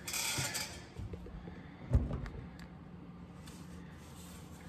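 Hand-work noises: a short rustle, a light knock about a second in and a sharper thump about two seconds in, over a faint steady hum.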